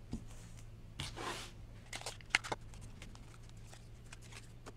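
Quiet handling of playing cards and card boxes on a table: a brief soft rustle about a second in, then a few light taps and clicks, over a faint steady low hum.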